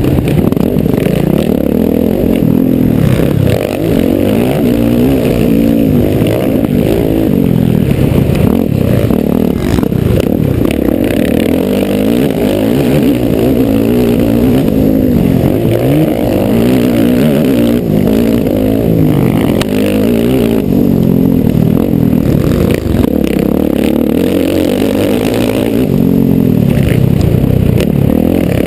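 Motocross bike engine running hard, heard close up from on board, its revs climbing and dropping again and again with throttle and gear changes.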